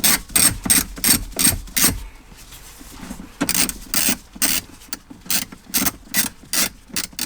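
Socket ratchet clicking as a 10 mm bolt is backed out, about three clicks a second, pausing for a second or so about two seconds in and then resuming.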